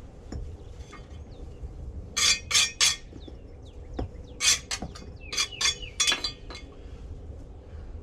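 Sharp, ringing clinks of concrete paver pieces knocking together and being tapped into place: three quick ones, then four more after a short pause.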